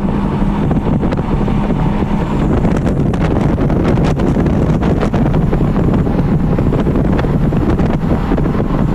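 Porsche Cayman R's mid-mounted 3.4-litre flat-six engine running steadily at around four thousand rpm in fourth gear, heard from inside the cabin under heavy wind and road noise.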